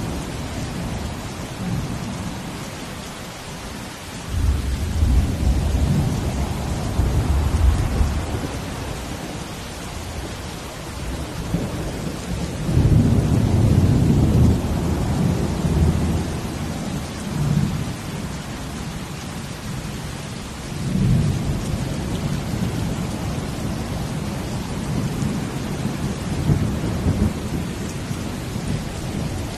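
Steady rain with three deep, low rumbles that swell and fade over a few seconds each: the first about five seconds in, the loudest near the middle, and a shorter one about two-thirds of the way through.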